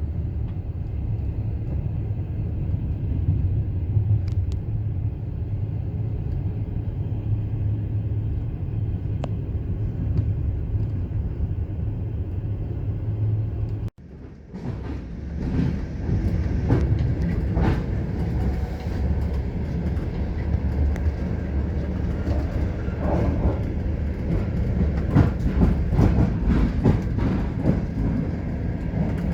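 Passenger train carriage running along the track: a steady low rumble with the knocking of wheels on the rails. A sudden break about halfway through, after which the wheels knock and rattle more sharply.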